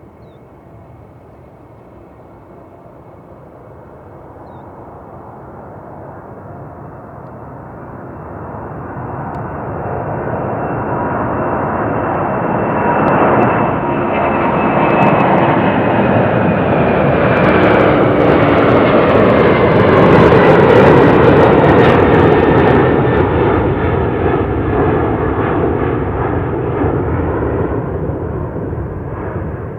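Boeing 747-400's four jet engines at takeoff power as the airliner passes close by. The sound builds steadily for about ten seconds and is loudest past the middle, with a high whine sliding slowly down in pitch, then starts to fade near the end.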